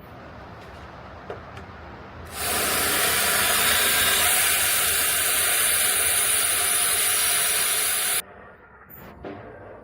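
A loud, steady hiss that starts about two seconds in and cuts off sharply about six seconds later, with a few faint clicks before it.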